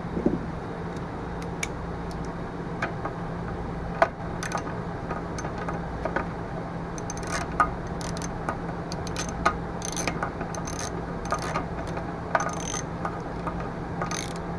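Ratchet wrench clicking in short runs as bolts are backed out: a few scattered clicks at first, then quicker, denser runs of clicks from about halfway.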